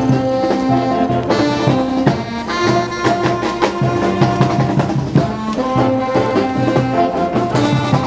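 Mummers string band playing a tune live: saxophones, accordions and banjos hold sustained melody notes over a steady drum beat.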